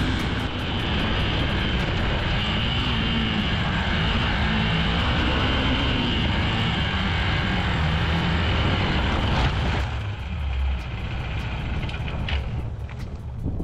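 Motorcycle engine running under load with wind rushing over the microphone, its pitch rising and falling with the throttle. The wind noise eases about ten seconds in.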